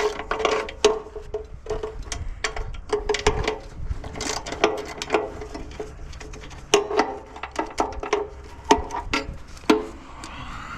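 Hand ratchet wrench clicking in short, irregular strokes as a bolt is worked on the compressor, with sharp metal clicks and knocks.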